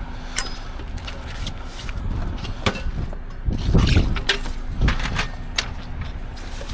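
Scattered clicks and knocks over a steady low hum, with heavier thumps about halfway through.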